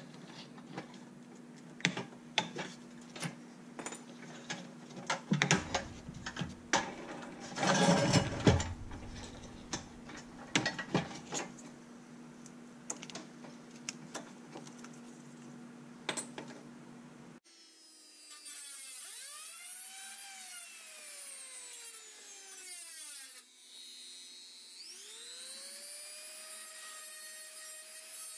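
Small metal hand tools clicking, tapping and scraping on a toy truck's steel wheel hub, with a louder scraping stretch early on. Then a handheld rotary tool spins up and down a few times, its whine rising and falling, and near the end rises and holds a steady whine as its bit works into a wheel hub.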